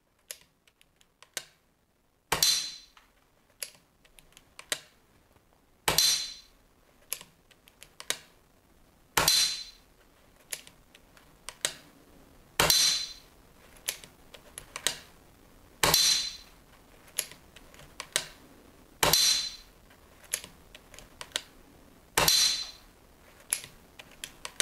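A Daystate Red Wolf PCP air rifle in .177 calibre, tuned to 7.5 joules, fires seven shots in a chronograph string, evenly spaced about three seconds apart. Fainter clicks come between the shots.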